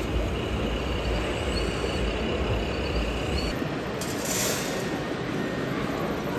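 Radio-controlled model bus with a sound module: a steady diesel-bus engine rumble that drops away about three and a half seconds in, followed by a short air-brake hiss.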